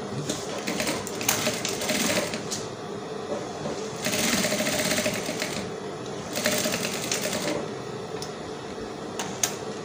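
Industrial sewing machine stitching a seam, running in spurts of a second or two with softer spells between as the fabric is guided through. A few light clicks near the end.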